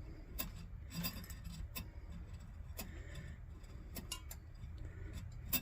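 A coiled cleaning spring being pushed and twisted through a Coleman lantern's burner tube, giving irregular small metallic clicks and ticks over a faint low hum.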